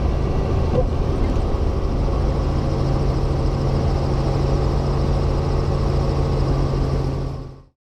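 Helicopter engine and rotor noise, a steady loud drone with a low hum, fading out quickly near the end.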